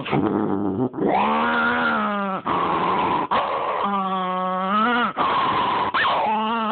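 Small dog growling in long, drawn-out pitched growls, about three of them, each a second or more, rising and falling in pitch.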